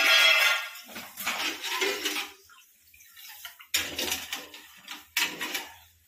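A steel ladle stirring sugar into water in a small steel pot, sloshing the water and scraping and clinking against the pot's sides in about four separate bouts, the first the loudest.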